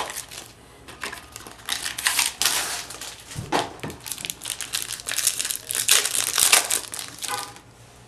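Trading card pack wrappers and cards crinkling and rustling in irregular bursts as packs are opened and handled.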